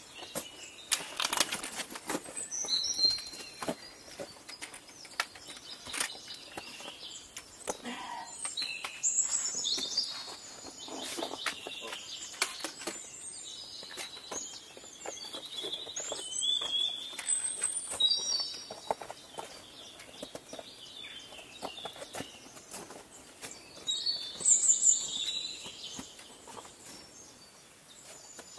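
Birds chirping and calling in short phrases every few seconds, over the taps and scrapes of footsteps and trekking poles on rock and icy ground.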